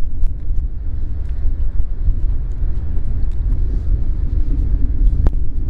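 Wind buffeting the microphone, a loud, steady low rumble, with a few faint clicks and one sharper click about five seconds in.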